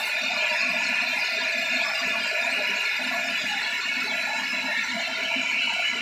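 Sawmill band saw cutting lengthwise through a teak log as the carriage feeds it past the blade: a steady, fairly high-pitched sawing noise with the machine running beneath it.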